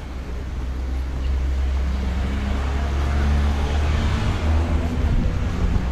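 A car driving past on the street: engine and tyre noise growing louder as it comes near, loudest about four seconds in, over a steady low rumble.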